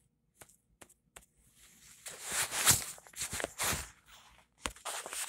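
Phone handling noise and footsteps on a concrete floor. There are a few light taps in the first second or so, then rubbing and shuffling steps from about two to four seconds in.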